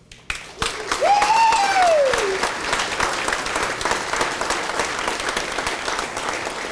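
Wedding guests applauding, the clapping swelling up just after the start and then running on steadily. One long high call rises and then falls in pitch over the clapping about a second in.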